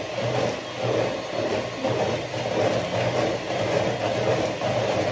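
Electric hand mixer running steadily, beating cake batter.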